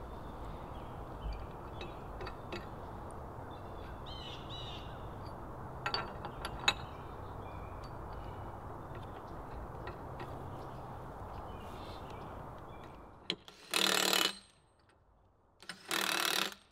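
Quiet outdoor ambience with a few small clicks and bird chirps, then a cordless Makita driver runs in two short bursts near the end. The bursts are fasteners being driven through the helical pile's bracket holes into the wooden post.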